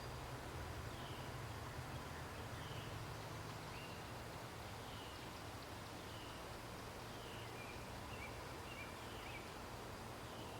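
A bird chirping repeatedly, short notes about once a second with a quicker run of them a little past the middle, over a steady low hum and hiss.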